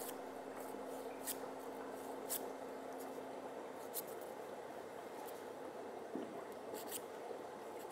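Faint short scratches of a nail file stroked across toenails, about one every second, over a steady low hum.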